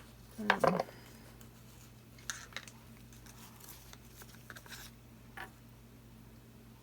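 Light handling noises of paint cups and tools on a work table: a click, then a short clatter about half a second in, followed by a few faint scattered taps.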